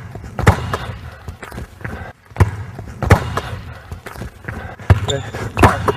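A basketball being dribbled on a hardwood gym floor: several sharp, irregular bounces that echo in the hall, along with sneaker movement on the court.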